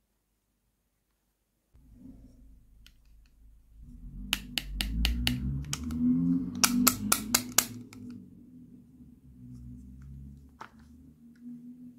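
Small plastic toy food pieces handled over a plastic toy tray: a low handling rustle starting about two seconds in, with two quick runs of light plastic clicks, five or six in each, around the middle.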